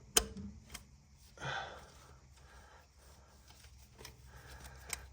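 Hand-work handling sounds: a sharp click just after the start, a brief rustling scrape about a second and a half in, scattered light taps and another click near the end, over a low steady hum.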